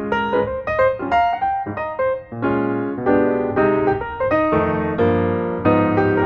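Background piano music: a steady, gentle melody of quick successive notes.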